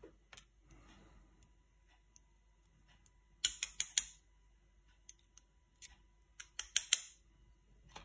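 Small metal lock parts clicking and tapping as a pin-tumbler lock's pins and springs are taken out during disassembly: two quick clusters of sharp clicks, one midway and one near the end, with a few single ticks between.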